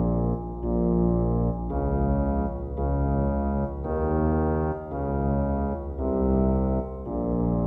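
Background music on organ-like keyboard: held chords that change every second or so over a steady low bass.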